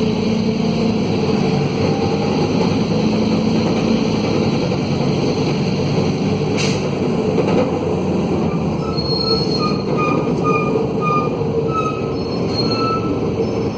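Mercedes-Benz OM904LA diesel engine of a midibus running under way with an Allison automatic gearbox, loud and steady, the excess noise coming from a broken exhaust. A single click comes about two-thirds of the way in, and short high-pitched tones repeat in the second half.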